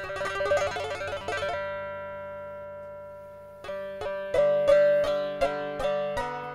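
Background soundtrack music: a quick run of notes, then a held chord that slowly fades, then single struck notes about three a second.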